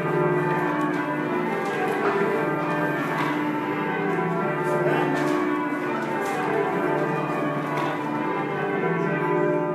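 Eight church tower bells change ringing, struck one after another in quick, unbroken succession, their tones overlapping.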